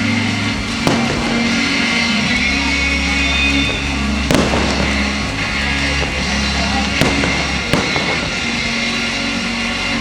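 Fireworks bursting over music. There are four sharp bangs, the loudest a little over four seconds in, against a steady musical backing with a bass line.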